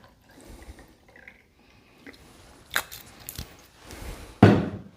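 Brandy being measured out and poured into a glass, with a few light glass clicks and one sharp knock near the end.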